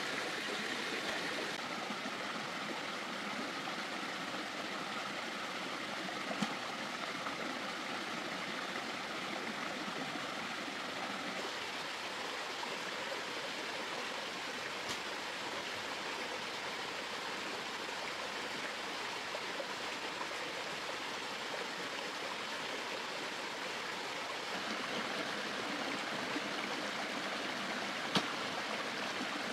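Steady rushing of running water, with a couple of brief clicks standing out, one about a quarter of the way in and one near the end.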